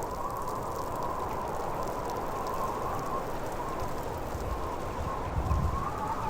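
Blizzard wind howling steadily, with a wavering whistle-like howl above the rush of the storm and a deeper gust about five seconds in.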